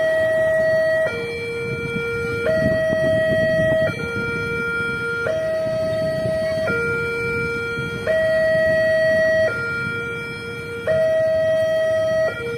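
Railway level-crossing warning siren sounding its two-tone electronic alarm, switching between a higher and a lower tone about every one and a half seconds, with a low rumble underneath. It is the crossing's warning that a train is approaching and the gates are closing.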